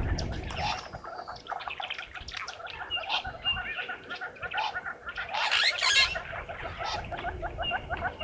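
African wild dogs twittering: many short, high chirping calls that pick up into a fast run of chirps over the last couple of seconds, with a short harsh rasp about five and a half seconds in.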